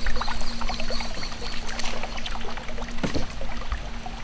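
Kayak's electric outboard motor humming steadily as the boat moves along, with a faint high whine that drops out about halfway. Water laps and trickles against the hull.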